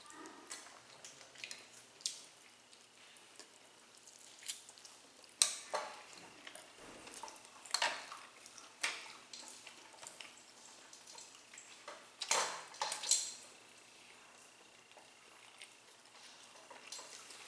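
Mukbang eating sounds: scattered clicks and light knocks of chewing roast chicken and handling tableware, with a sharp click about five seconds in and a louder cluster about twelve seconds in.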